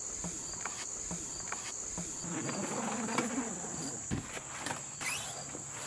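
Insects trilling in the woods, one steady high-pitched tone throughout. There are faint handling noises, and a single thump about four seconds in.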